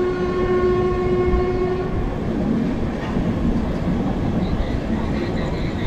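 Train horn sounding one steady note for about two seconds, over the continuous rumble of a moving train.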